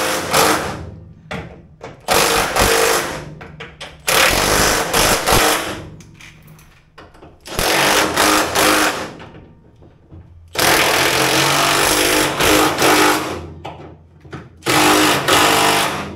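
A cordless impact driver run in about six short bursts, one of them longer, about two and a half seconds, as fasteners on a car door are run in. There are brief pauses between the bursts.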